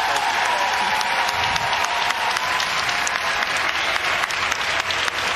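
Audience applauding steadily, with single claps standing out of the wash of clapping.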